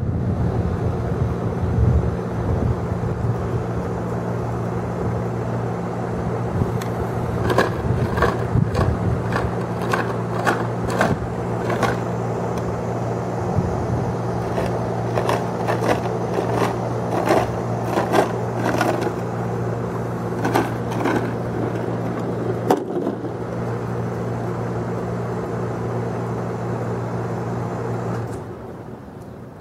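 A steady low motor hum cuts off near the end, with scattered sharp clicks and knocks through the middle.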